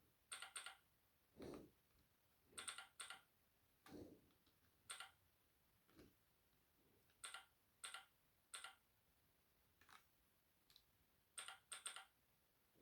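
Keystrokes on a Keychron K5 V2 low-profile mechanical keyboard with brown switches: about fifteen separate key presses at an uneven pace, some coming in quick pairs, a few duller than the rest.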